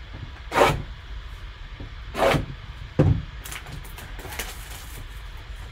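Hands handling and sealing a cardboard card box: two short scraping swishes, a sharp knock about three seconds in, then a spell of light crackly scraping.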